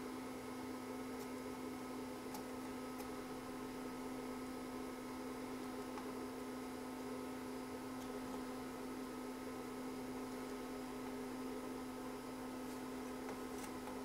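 A faint, steady electrical hum with a few faint ticks.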